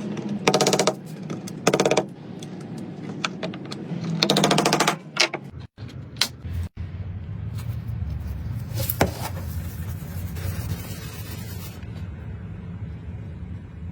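A power tool working wood in three short rattling bursts, then a steady low hum from about six seconds in.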